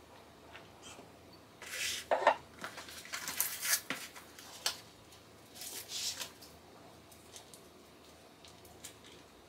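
Plastic packaging and paper wrapping crinkling and rustling in a few short bursts as a snack box is opened and a wrapped treat is unwrapped by hand, loudest about two seconds in, with a few light clicks and taps later on.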